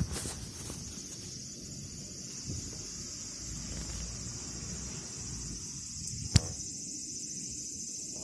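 Steady high-pitched chorus of night insects chirping, with a single sharp click about six seconds in.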